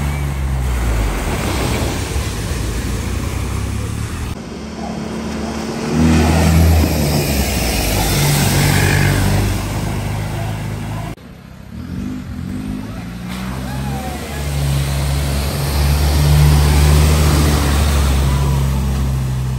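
Cars driving through a deep ford: engines running under load over the rush and splash of water thrown up as bow waves. First a Ford EcoSport ploughing through, then a lifted Land Rover Discovery on big off-road tyres wading across. The sound changes abruptly about 4 and 11 seconds in, where clips are cut together.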